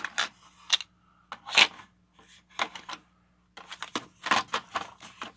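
Drill bit packs and small tools being handled and set down: an irregular run of clicks and light rattles, busiest about four seconds in.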